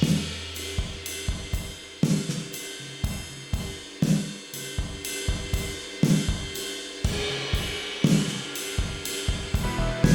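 Drum kit playing a steady groove of kick drum, snare, hi-hat and cymbals, with a heavier accent about every two seconds. It is a close-miked kit recording given artificial drum-room ambience by the Accentize Chameleon reverb plugin.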